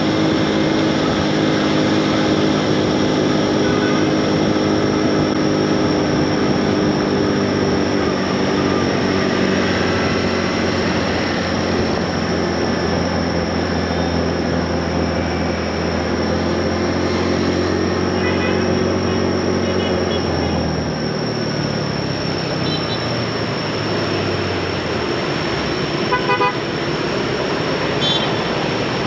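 Motorbike engines running in dense city traffic, a steady engine note that falls away about two-thirds through. Several short horn toots sound in the second half, the loudest near the end.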